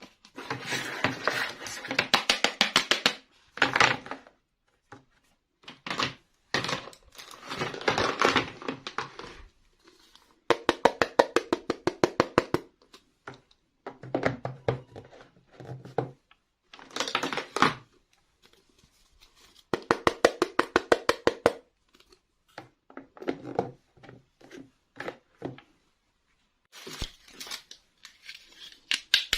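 Toy packaging being opened by hand: repeated bursts of a second or two of rapid crackling, separated by short pauses.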